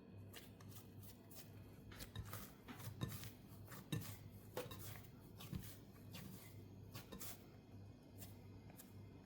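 Faint, irregular light taps and clicks of kitchen utensils being handled, over a low steady hum.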